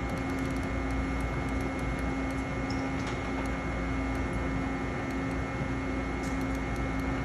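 Steady hum of a powered-up CNC lathe standing at idle, a constant drone with a few unchanging tones and a few faint ticks.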